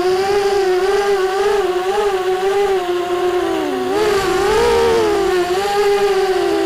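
Racing quadcopter's brushless motors (ZTW Black Widow 2204, 2300KV) and 5-inch propellers whining in flight, the pitch wavering with throttle. The pitch dips just before four seconds in, then swings up and settles again.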